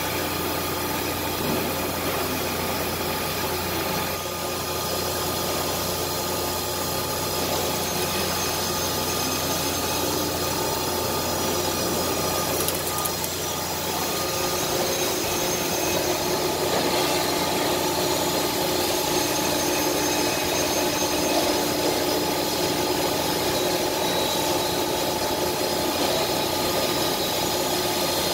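CNC router running: a steady machine hum with several steady tones, and a few short gliding tones over it.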